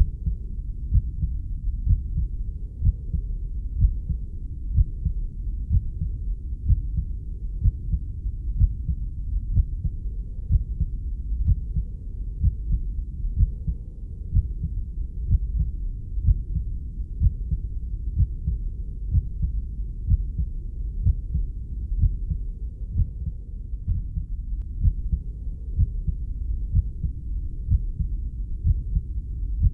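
Heartbeat sound: a steady, regular run of low, dull thuds over a continuous low rumble.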